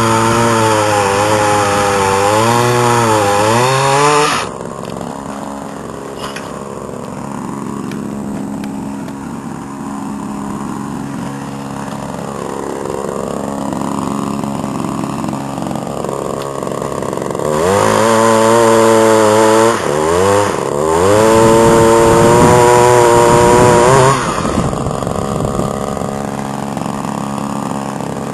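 Echo PPT2400 pole pruner's 25cc two-stroke engine revving high with a wavering pitch, then dropping to a lower idle about four seconds in. It revs up again for about six seconds, with a brief dip in the middle, and then falls back to idle.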